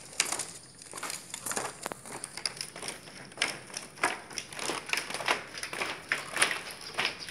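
Footsteps scuffing and tapping down tiled stairs, an irregular run of short taps a little under two a second.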